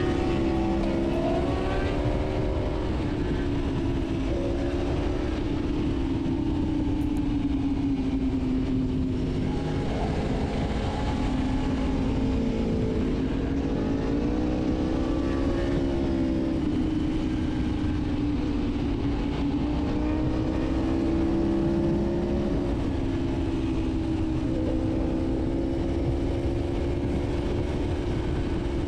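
Sport motorcycle engine running at steady riding revs, heard on board, its note drifting gently up and down with the throttle over a steady rush of wind and road noise.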